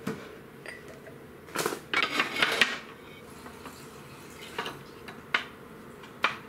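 Ceramic plates and dishes clinking and clattering as they are set down and moved about on a table, with a busy run of clatter about a second and a half in, then three single clinks.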